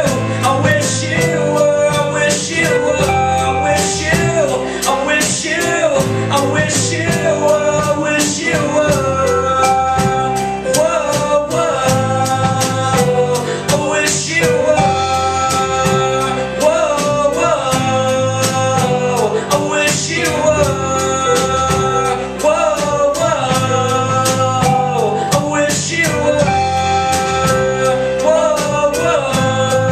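Small rock band playing a song live: drum kit keeping a steady beat under acoustic and electric guitars.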